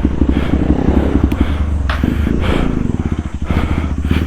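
Motorcycle engine running at low revs with a steady deep rumble of rapid firing pulses. A couple of short sharp clicks come in the middle.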